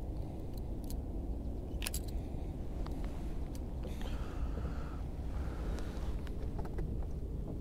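Fishing rods and reels being handled in an aluminium jonboat, giving scattered light clicks and knocks, the sharpest about two seconds in, over a steady low rumble.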